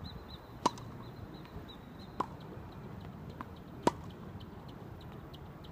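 Tennis rally: a racket hitting a tennis ball three times, about a second and a half apart, the first and last hits sharper and louder than the middle one from the far end of the court.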